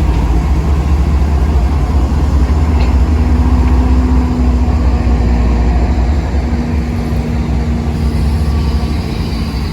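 Diesel locomotive engine running with a loud, steady low rumble.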